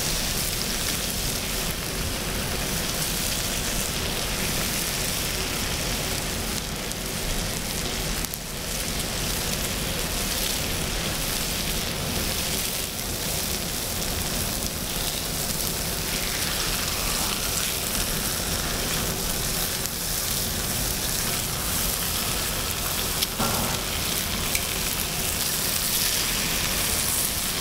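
Pork belly and kimchi sizzling steadily on a hot griddle plate, the fat frying.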